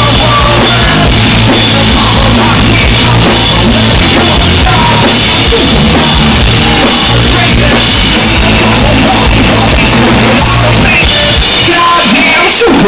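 Loud live rock band: drum kit, electric guitar and a sung lead vocal, the heavy low end running until about a second before the end. There the music breaks off and the crowd begins to whoop.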